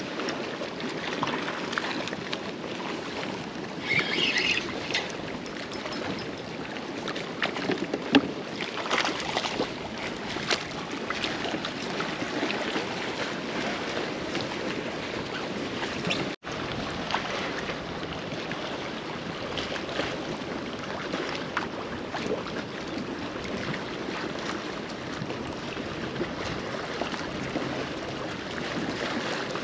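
Small wind-driven waves lapping and slapping against a fishing kayak's hull, with wind on the microphone. Scattered light knocks, one sharp knock about eight seconds in.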